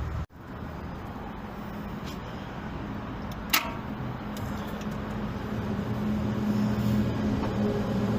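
A plastic fuel-line quick-connector on a New Holland LB115.B backhoe loader snaps once, a sharp click about three and a half seconds in, over a steady low hum.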